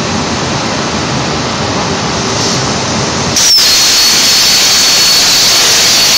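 HyPerformance CNC plasma torch: a steady hiss, then about three and a half seconds in the arc strikes. It gets suddenly louder, with a high whine that dips briefly and then holds steady as the torch cuts the steel plate.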